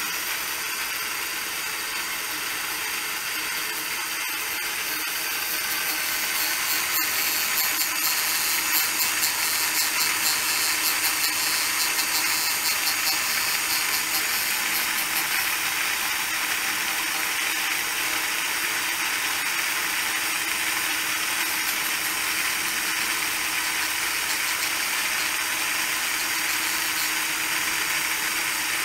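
Rose engine lathe's motorized high-speed cutter running and cutting an African blackwood workpiece: a steady, hissy machine whir with a few held tones, somewhat louder for several seconds in the middle.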